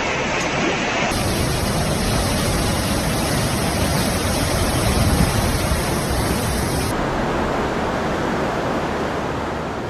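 A steady, loud rushing noise with no clear pitch, its character changing abruptly about one second and seven seconds in.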